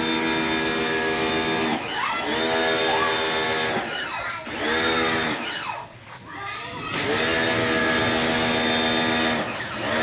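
Electric pressure washer motor running with a steady whine. It winds down and picks back up about four times as the spray gun trigger is let go and squeezed, the longest pause coming about six seconds in.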